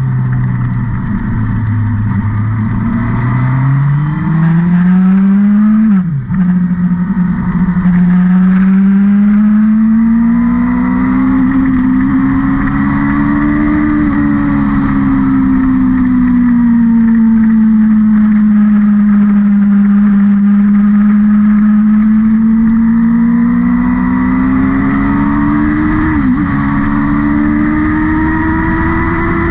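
Car engine running hard around a circuit, its pitch rising and falling with the revs. There is a quick gear change about six seconds in and another near the end.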